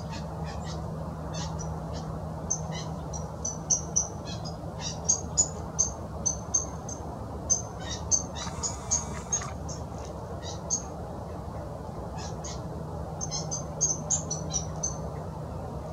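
Small birds chirping: many short, high chirps in irregular runs, over steady low background noise with a faint hum.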